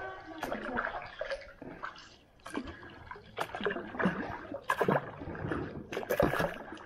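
Kayak paddle strokes: the blade dipping and splashing in the river, water dripping and trickling off it in irregular bursts.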